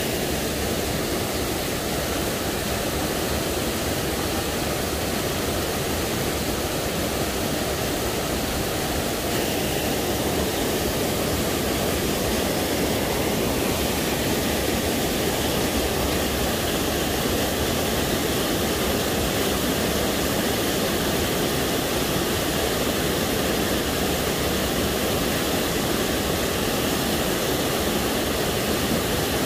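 Small waterfall cascading over rocks into a pool, a steady rush of water.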